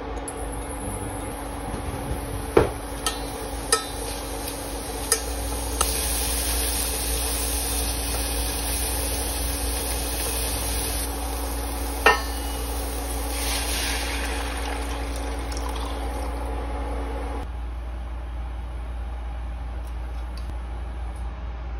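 Chopped spring onions sizzling in hot oil in a small stainless-steel saucepan, with a few sharp clinks of chopsticks against the pan while stirring. A steady hum runs underneath. The hum and the sizzle drop away about three-quarters of the way through.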